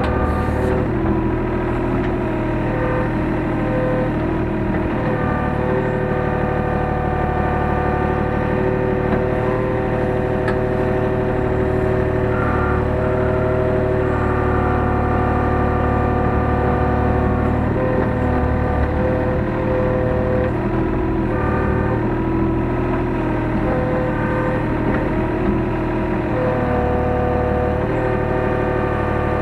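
Hyundai R35Z-9A mini excavator's diesel engine running steadily under the cab, with a set of higher steady whining tones that change and break off every few seconds as the machine works.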